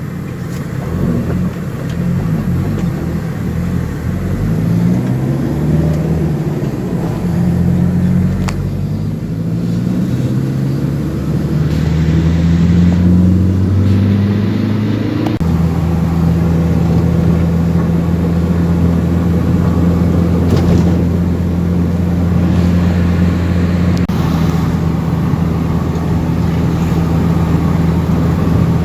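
Vehicle engine accelerating through the gears, its pitch climbing and dropping back at each shift. About halfway through it settles into a steady, even run.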